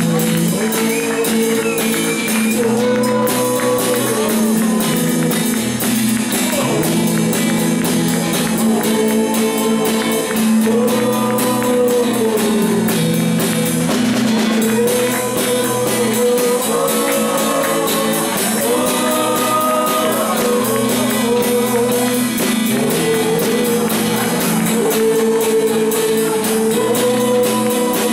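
Live acoustic rockabilly song: acoustic guitar strummed with drums and cymbal played with sticks, under a sung melody in held phrases.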